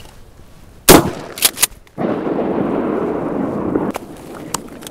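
A 12-gauge shotgun fires one loud shot about a second in, followed by two quicker, fainter sharp clicks, then a steady rushing noise for about two seconds.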